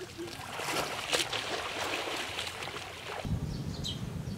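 Water splashing and sloshing as people move about in a shallow muddy pond. About three seconds in it cuts to a low wind rumble with a few short, falling bird chirps.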